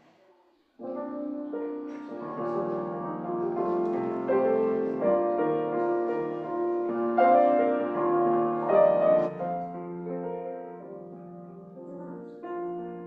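Instrumental keyboard music, likely piano, starts abruptly about a second in after near silence and plays on: the prelude opening the church service.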